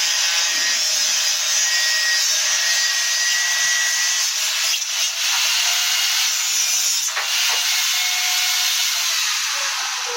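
Power tool cutting wood, running steadily with a dense, noisy sound. It dips briefly about five seconds in and again a little after seven seconds, then fades near the end.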